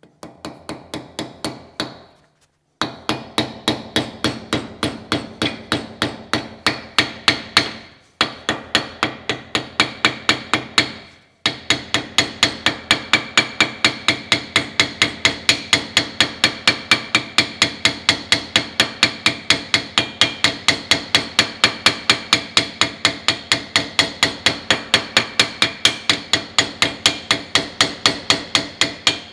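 Hand hammer striking the end of a hot steel rod held upright in a vise, upsetting it into a round rivet-like head. Rapid ringing metal-on-metal blows come about three a second, with brief breaks about two, eight and eleven seconds in.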